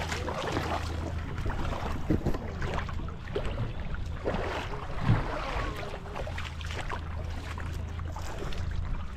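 Boat engine idling with a low, steady hum, under splashing in shallow water and wind on the microphone.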